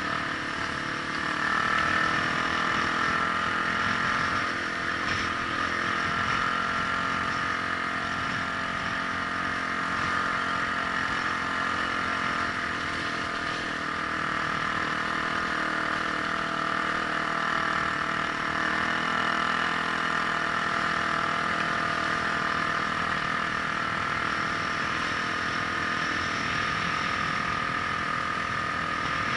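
Vehicle engine running steadily at an even speed, with rumble from wind and the road underneath.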